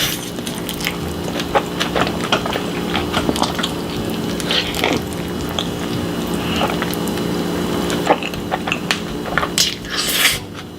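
Close-miked mukbang eating sounds: wet chewing and squishing with many short, sharp clicky bites, over a steady low hum.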